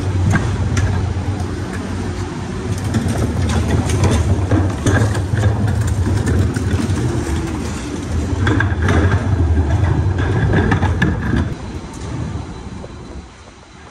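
Vehicle engine running with a steady low rumble and scattered knocks and rattles over it; it dies down near the end.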